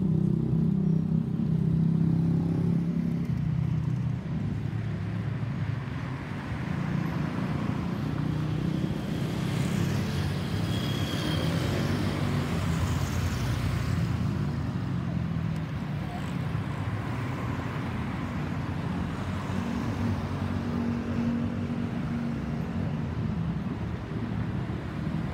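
Airbus A320's CFM56 turbofan engines passing overhead on climb-out: a broad jet rush swells about a third of the way in, peaks with a faint high whine sliding downward as it passes, then slowly fades. A steady low road-traffic rumble runs underneath.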